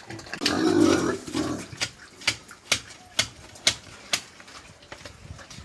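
Domestic pigs in a pen: a loud grunt in the first second, then a run of sharp clicks, about two a second.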